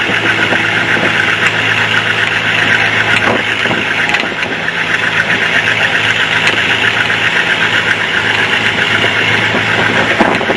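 International Harvester tractor engine running steadily under way, with a fast, even exhaust beat.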